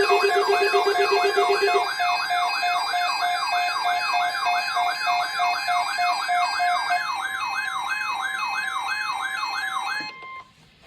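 Several emergency alert tones sounding together: a fast warbling siren sweeping up and down about three times a second over steady and dashed beeping tones. A low, rapidly pulsing tone stops about two seconds in, and all of it cuts off suddenly near the end, just before a weather alert message is read.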